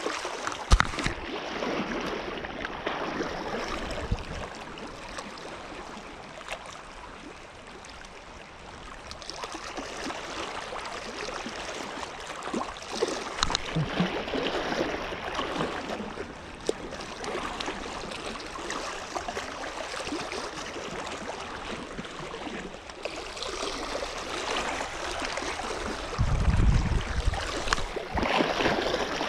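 Sea water washing and lapping, a steady noisy wash that swells and fades, with a brief low rumble near the end.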